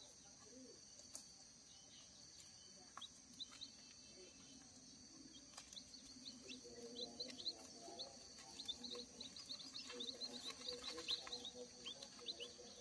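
Faint peeping of day-old village-chicken chicks nestled under a brooding hen: short falling cheeps, scattered at first and coming thick and fast in the second half. From about halfway the hen's low, soft clucking murmurs underneath.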